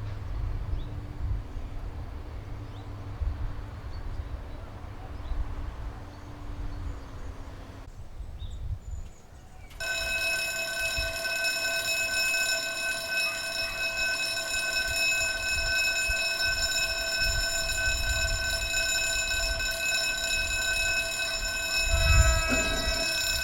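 A low rumble, then about ten seconds in a level crossing warning alarm starts abruptly and sounds steadily as a high, multi-toned alarm. There is a low thump near the end.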